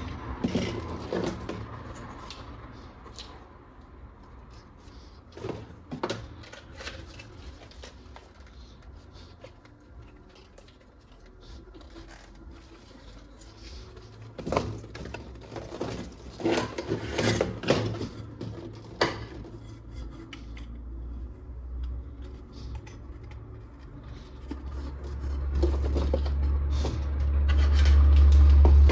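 Plastic toy guns and their packaging being handled: scattered clicks, knocks and rubbing of plastic parts, busiest in the middle. A low rumble builds near the end.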